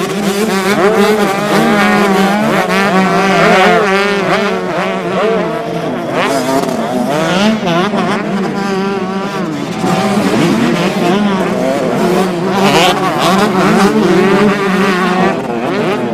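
Several 125cc two-stroke motocross bikes racing, their engines revving up and down as the riders accelerate and shift, with several pitches overlapping and rising and falling.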